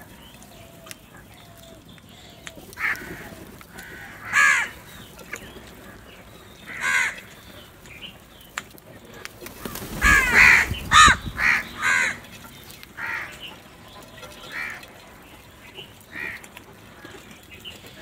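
A flock of house crows cawing as they feed: single harsh caws every second or two, with the loudest burst of several caws and a close flurry of wings about ten seconds in.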